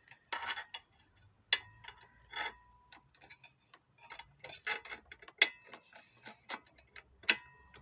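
Heavy-duty stapler being handled as a strip of 13 mm staples is loaded: an irregular string of sharp metal clicks and clinks, a few with a short ringing tone.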